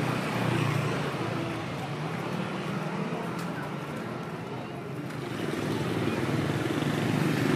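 Busy street ambience: motor traffic passing, with voices in the background. The traffic noise eases in the middle and swells again near the end.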